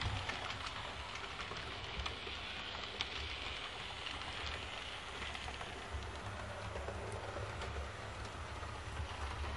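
H0-scale model train, a Roco E626 electric locomotive hauling coaches, running on the layout track. The wheels on the rails make a steady rattling hiss, with scattered clicks over a low hum.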